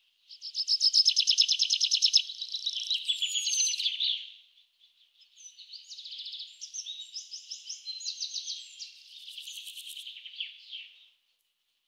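Small songbird singing: a loud, fast trill of evenly repeated high notes for about four seconds, then after a short pause a quieter, more varied warbling phrase.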